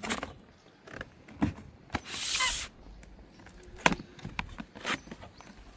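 Cardboard packaging being handled and opened: scattered knocks and taps of cardboard, and a short rasping, tearing burst about two seconds in as a seal or tape is pulled off the box.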